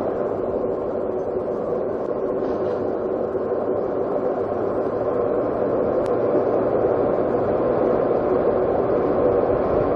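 A vehicle's engine running steadily, a constant hum with no breaks.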